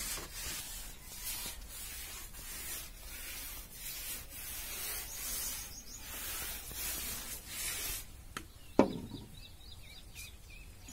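A hand smearing a wet coating across an earthen floor, rubbing strokes swishing about one to two times a second. The strokes stop a little before nine seconds in, followed by one sharp knock.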